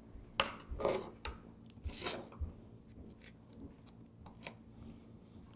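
Metal tweezers clicking and scraping against the LG G6's charge-port board and frame while prying a clipped-in part loose: a string of small, sharp ticks and short scratches, busiest in the first two seconds and thinning out later.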